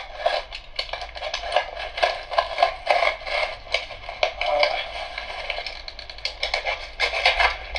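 A box cutter blade scraping and slicing through packing tape and corrugated cardboard on a shipping box. It makes an irregular run of quick clicks, scrapes and crackles as the tape is cut and the flaps are handled.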